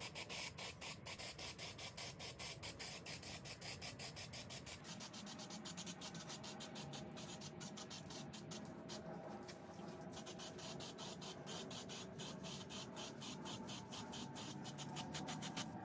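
Aerosol spray paint can hissing as silver paint is sprayed in passes, the hiss fluttering rapidly and evenly, easing briefly about nine seconds in.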